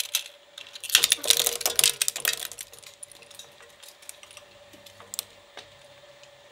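Mini twin-shaft shredder's steel cutter blades crunching up a Hot Wheels toy car. A dense run of sharp cracking starts about a second in and lasts about a second and a half, then comes a scattering of single clicks as the last fragments go through. Under it all the shredder's motor hums steadily.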